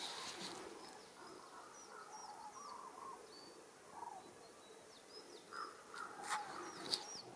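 Faint calls from a large flock of birds circling high overhead, mixed with thin high chirps, and a common raven calling a few times near the end.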